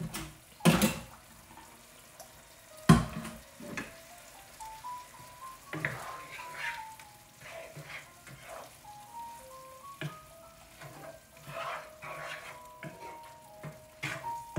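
A wooden spoon stirring and scraping through a coconut-milk curry simmering in a skillet, with two sharp knocks against the pan near the start. Quiet music with a simple melody plays underneath.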